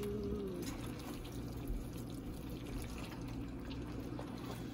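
Wet, sticky squelching of a spoon stirring creamy bowtie pasta in a skillet, with small ticks of the sauce and spoon.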